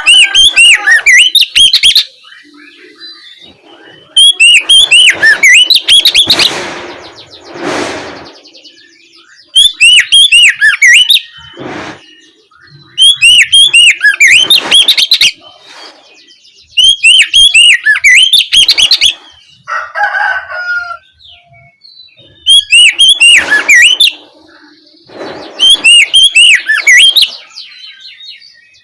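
Oriental magpie-robin singing its loud, open full song. It comes in seven bursts of rapid, repeated high notes, each about two seconds long, with short pauses between them.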